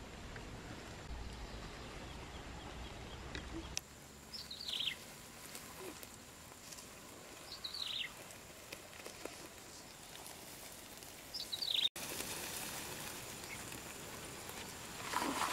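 A bird calls three times over a steady outdoor background, each a short call falling in pitch, a few seconds apart. A brief louder noise comes near the end.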